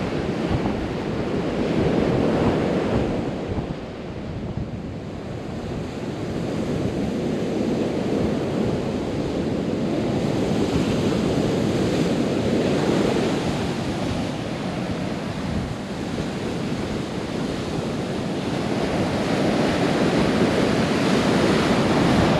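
Gulf of Mexico surf breaking on a sandy beach, swelling and easing every several seconds, with wind buffeting the microphone.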